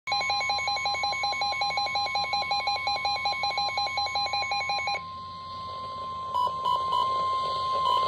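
Midland NOAA weather alert radio sounding its rapid electronic alarm beep, several pulses a second, for about five seconds. The alarm then stops and leaves the receiver's hiss. A few short beeps follow, then a steady warning tone from the weather radio broadcast begins near the end, signalling that a warning is being issued.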